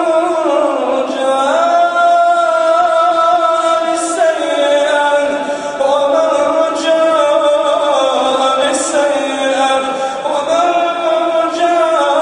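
A man reciting the Quran in melodic tajweed chant, holding long notes that bend in pitch, in phrases of a few seconds with short breaks between them.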